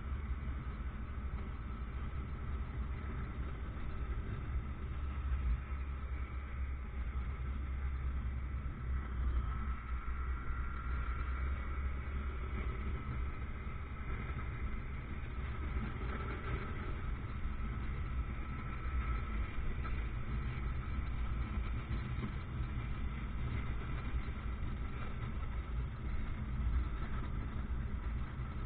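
Motorcycle running along a street on a ride: a steady low engine and road rumble with no sudden events.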